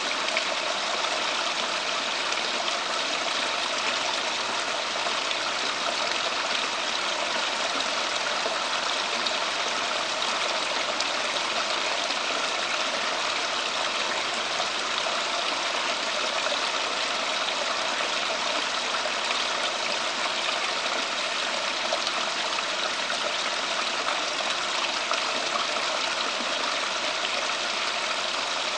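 Steady rush of running water, unchanging throughout.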